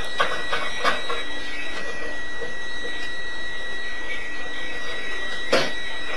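A steady, high-pitched electronic alarm tone sounds without a break, with two knocks, about a second in and near the end.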